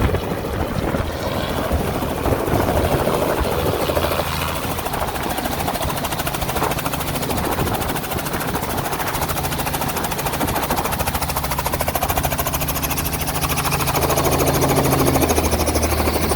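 A small tour helicopter running, a steady low drone with a fast, even pulsing from the rotor.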